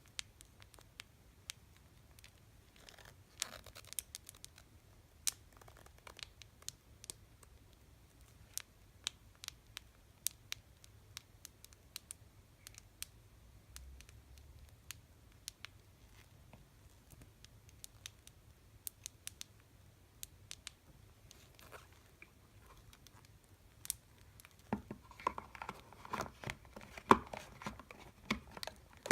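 Tapping on candy boxes: scattered single sharp taps, becoming a dense, louder flurry of taps and handling noise near the end.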